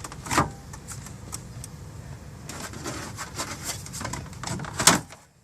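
Plastic dashboard trim panel being worked on its clips: a string of light clicks and plastic knocks, with a sharp snap near the end.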